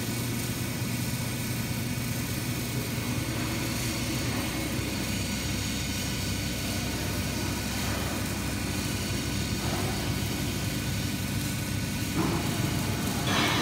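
The drive motors of a plate-flipping machine for cement mixer drums and pressure vessels running with a steady mechanical hum. Near the end the sound broadens and grows louder.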